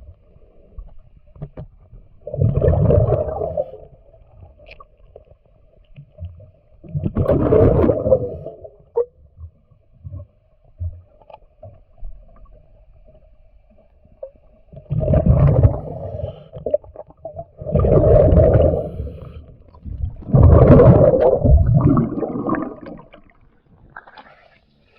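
Underwater breathing of a diver: air exhaled through the regulator rushes out as bubbles in five bursts of a second or two each, with a faint steady hum between breaths.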